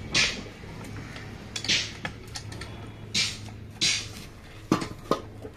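Short scratchy rasps, about four of them spaced a second or so apart, from a finger rubbing at the dirt and soot caked in the ports of a Chevrolet Tavera diesel engine's head, then two sharp metal knocks near the end, over a low steady hum.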